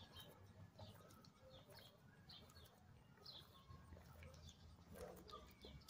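Near silence, with a few faint bird chirps in the background.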